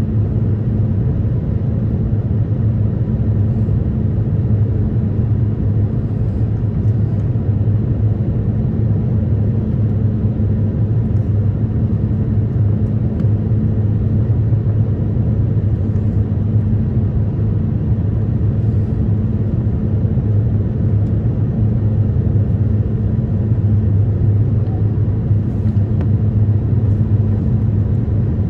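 Airbus A350-900 cabin noise on approach: a steady low rumble of airflow and Rolls-Royce Trent XWB engine drone, with a low hum running through it.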